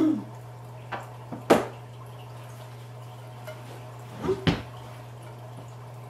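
Hard ceramic and clay parts of a bird-bath fountain being handled and fitted together: a few sharp knocks, the loudest about one and a half seconds in and two more close together near the end. A steady low hum runs underneath.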